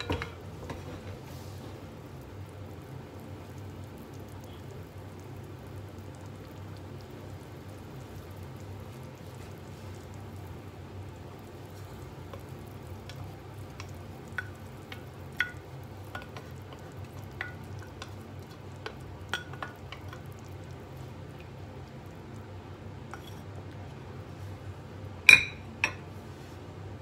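A wooden spatula taps and scrapes against a ceramic bowl and the rim of a stainless steel pot, a string of light clicks as chopped greens are knocked into the pot, over a steady low hum. Near the end come two sharp clinks of dishware, the first the loudest sound.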